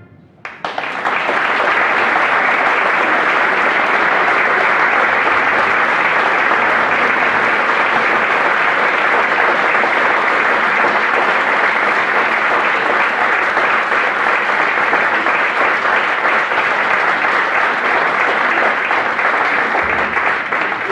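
Audience applauding, starting about half a second in right after the band's final note and fading near the end.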